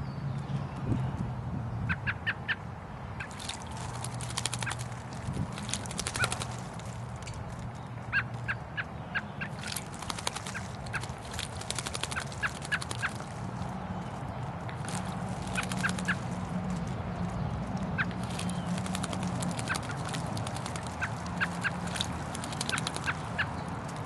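An American robin bathing in a concrete birdbath, splashing the water with fluttering wings in repeated bouts that last from about a second to a few seconds. Short runs of quick bird chirps come between the bouts, over a low steady hum.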